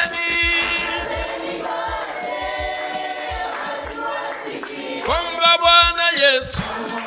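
Live gospel worship music: a choir of singers holding long notes over a church band, with steady drum beats and a tambourine. A lead voice comes in strongly about five seconds in, sliding and wavering between notes.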